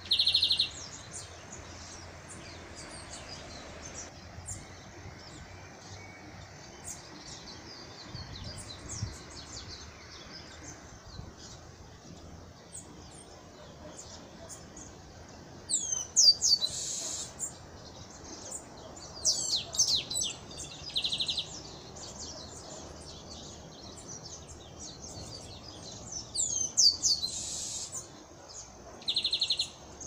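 Chestnut-capped blackbird (garibaldi) singing: several song phrases of quick sliding whistled notes, each ending in a short buzzy trill, with quieter gaps between them.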